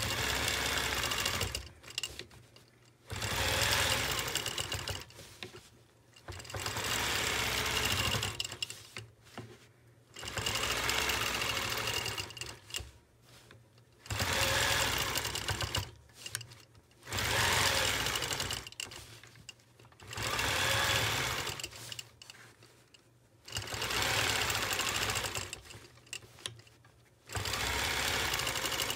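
Longarm quilting machine stitching along an acrylic circle ruler in about nine runs of two to three seconds each, stopping briefly between runs as the ruler is repositioned.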